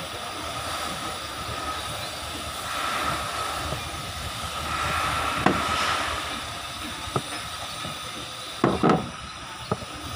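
Small clicks and taps of wire terminals and a screwdriver on an angle grinder's switch and plastic housing, a handful of them in the second half, over a steady background hiss.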